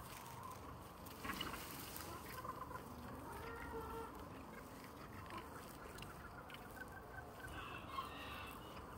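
A flock of backyard hens clucking softly as they feed, with a run of quick clucks about three-quarters of the way through and a few sharp clicks.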